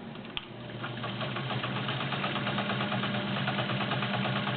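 A Penncrest zigzag all-metal sewing machine (model 5000) stitching through six layers of denim. It starts after a click about half a second in, then runs with a steady motor hum and a fast, even needle rhythm.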